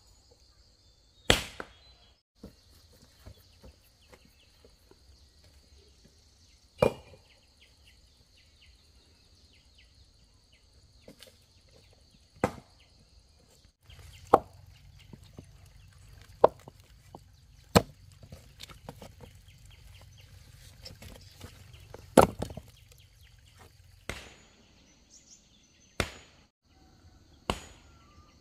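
Chopping into wood: about ten sharp, separate strikes at uneven intervals, a second to several seconds apart.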